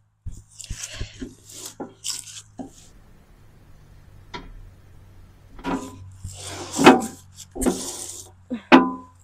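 Rusty steel tractor back bucket being dragged and tipped by hand over grass: irregular metal clanks, knocks and scraping. There is a quieter lull in the middle, and the loudest clanks come near the end.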